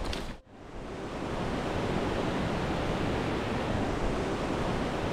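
Steady rush of a mountain river flowing over rocks in a gorge. It fades in about half a second in after a brief drop.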